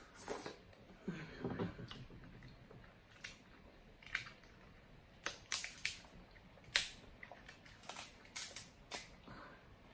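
King crab leg shell being cracked and snapped apart by hand: a run of about ten sharp cracks and snaps at uneven intervals, the sharpest a little before seven seconds in. Softer mouth sounds of eating come in the first two seconds.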